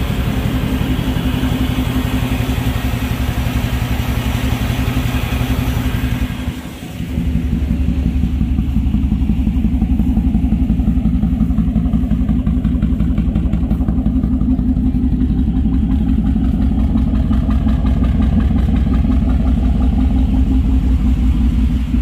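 A freshly swapped-in 350 small-block Chevy V8 in an OBS Chevy pickup idling steadily. It is heard first at the engine bay with more hiss, then after a brief break about seven seconds in, as a deeper exhaust note at the tailpipe.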